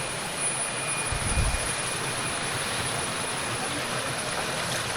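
Steady rushing noise, even across all pitches, with a thin high steady whine over it and a brief low rumble about a second in.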